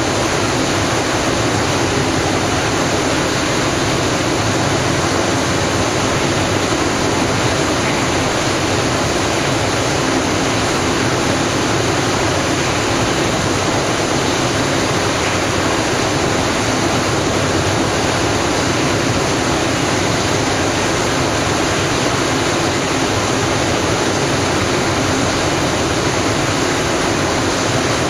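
Steady rush of turbulent water flowing through a hatchery fish ladder.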